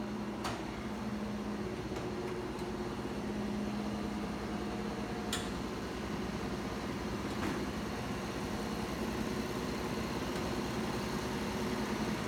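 Genie Pro 83 chain-drive garage door opener running as it raises the door: a steady motor hum with a few sharp clicks along the way.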